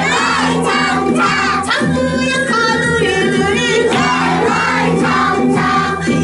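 Group singing: young children and a woman singing a song together over instrumental accompaniment with sustained tones.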